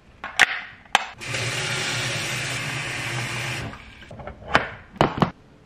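Water running from the kitchen tap into the plastic reservoir of a cat water fountain for about two and a half seconds, a steady rush with a low hum. Sharp plastic clicks and knocks come just before and near the end as the fountain's parts are handled and fitted together.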